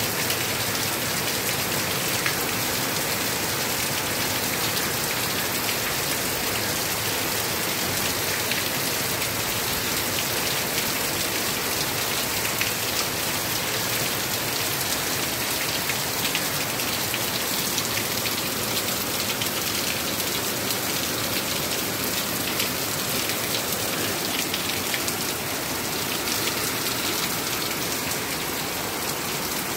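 Heavy rain falling steadily on paved ground and into standing water, a dense even hiss of drops pattering and splashing.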